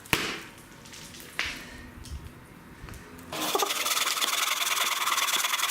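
Hand saw cutting through a piece of firewood: after a couple of short knocks, a continuous rasping of quick, even saw strokes starts about three seconds in.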